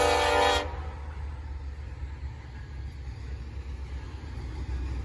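Diesel freight locomotive's air horn sounding a chord, cutting off about half a second in, leaving a steady low rumble from the train; another horn blast starts right at the end.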